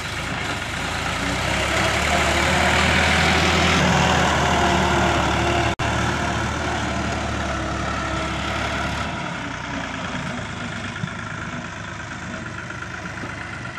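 Sonalika DI 60 tractor's diesel engine running as it hauls a trailer loaded with soil. The sound cuts out for an instant about six seconds in and comes back quieter.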